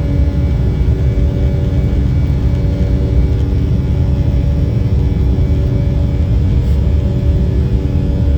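Steady cabin drone of an Embraer 190 airliner in flight, heard from a passenger seat: a low rumble of airflow and engines with a few steady humming tones from the General Electric CF34 turbofans.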